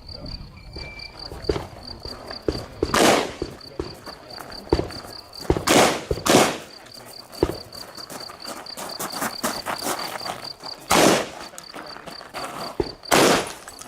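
Five shotgun shots spaced irregularly a few seconds apart, with small clicks and knocks between them, over a steady high chirping of insects.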